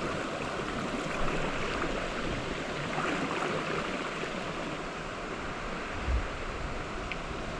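Mountain stream running over rocks: a steady rushing of water, with a brief low thump about six seconds in.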